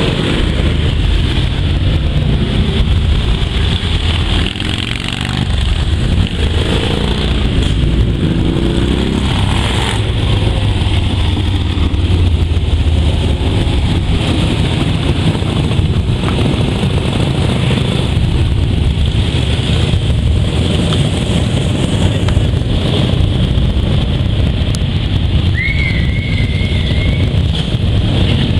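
A long column of Harley-Davidson V-twin motorcycles passing slowly, their engines rumbling steadily, with bikes revving up and down here and there. A short high warbling tone sounds near the end.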